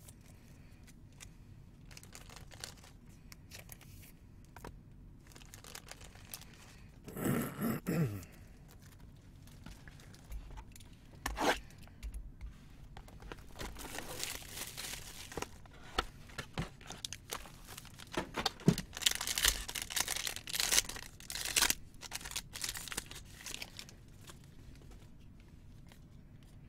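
Plastic wrapping torn open and crinkled as a sealed trading-card box and its pack are opened by hand, in scattered rustles and short sharp rips that come thickest in the second half.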